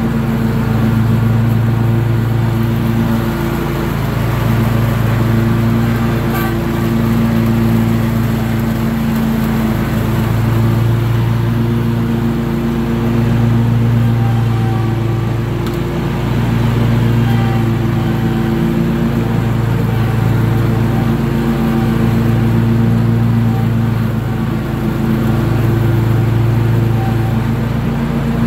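Toro Z Master 2000 zero-turn mower's 24.5 hp 708cc engine running steadily while mowing grass, heard from the driver's seat. The engine hum swells and eases every few seconds.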